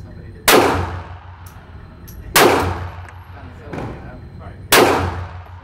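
Three shots from a Smith & Wesson Bodyguard .380 compact pistol, about two seconds apart: the first about half a second in, the last near the end. Each shot rings out in the hard-walled indoor range.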